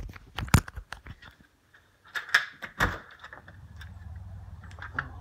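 Knocks, clatters and rubbing of a phone being handled and carried, loudest at the start and twice more around two and a half to three seconds in, then a steady low hum from about three seconds in.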